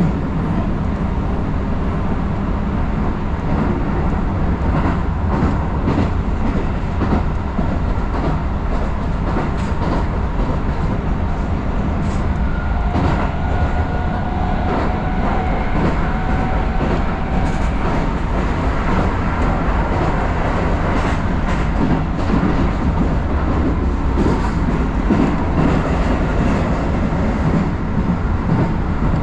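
Keisei Line electric commuter train running, heard on board: a steady rumble of wheels on the rails with scattered clicks over the track, and a faint steady whine between about 13 and 17 seconds in.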